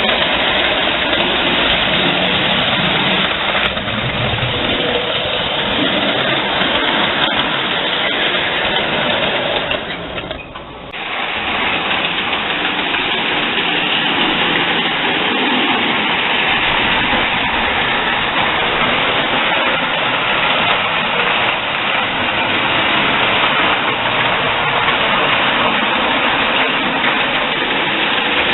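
Standard gauge toy train running on its track: a steady rumble and whir of motor and wheels, dipping briefly about ten seconds in before carrying on.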